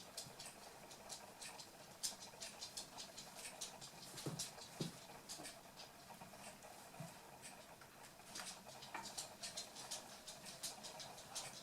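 Eight-week-old toy poodle puppies playing, their paws pattering with many faint, irregular clicks and taps, and a couple of brief low sounds about four seconds in.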